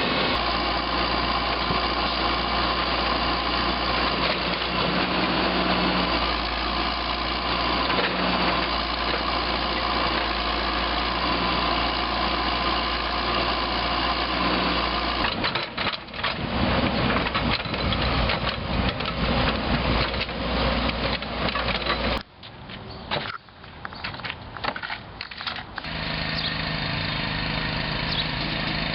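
Engines of heavy construction equipment running steadily. The sound changes abruptly about halfway through, dips briefly, then settles to another steady engine hum near the end.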